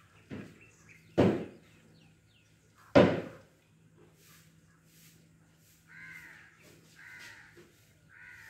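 Crows cawing: two loud, harsh caws about one and three seconds in, then three fainter caws near the end.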